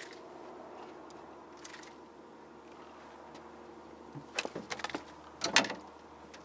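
Clicks and knocks of a just-caught skipjack being handled and unhooked aboard a small fishing boat: a quick run of clicks about four and a half seconds in, then a louder clatter a second later, over a faint steady hum.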